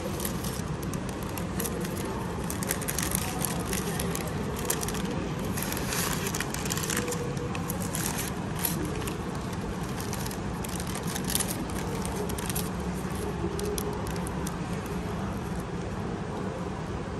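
Brown kraft paper crinkling and rustling as a sandwich wrapper is pulled open by hand, in irregular crackly bursts that die away a few seconds before the end, over a steady low background hum.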